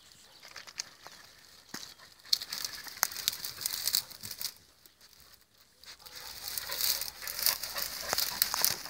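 Dry scrub and twigs rustling and crackling in irregular bursts as they are pushed through, loudest a couple of seconds in and again over the last three seconds.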